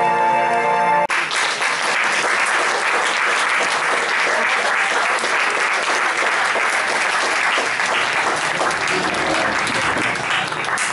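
Music cuts off sharply about a second in, and a roomful of people applaud, the clapping holding steady, with a few voices rising over it near the end.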